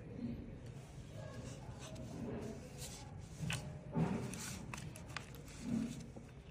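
Soft clicks and light knocks of a saw chain and guide bar being handled and seated on a small battery pruning saw, with the loudest knock about four seconds in.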